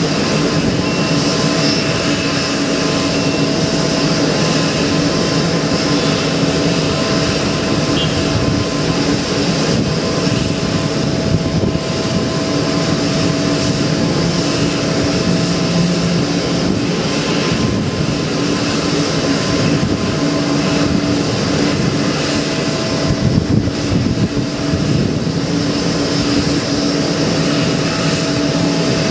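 Steady aircraft jet-engine noise: a continuous hiss with a few steady whining tones through it, unchanging in level.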